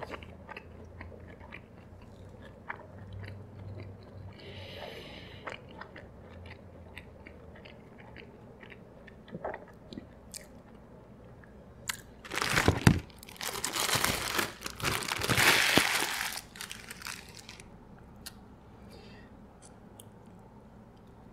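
Soft chewing with small wet mouth clicks close to the microphone, then, about halfway through, several seconds of loud crinkling and rustling of a paper burger wrapper as a burger is unwrapped.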